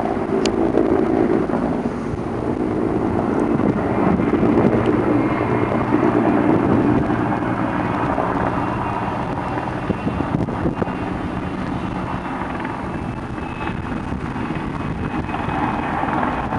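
A distant helicopter flying closer, its faint whine rising out of steady road-traffic noise, with wind rumbling on the microphone.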